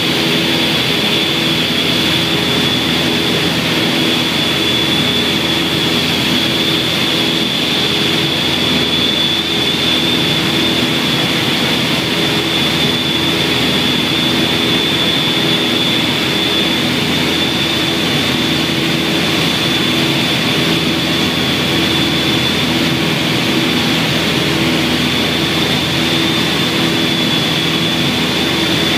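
Twin-engine light aircraft's engines and propellers droning steadily, heard from inside the cockpit, with a steady high-pitched whine above the drone.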